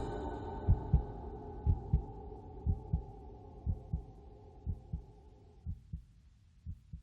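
Heartbeat sound effect: paired low thumps about once a second over a droning tone, both fading steadily and cutting off suddenly near the end.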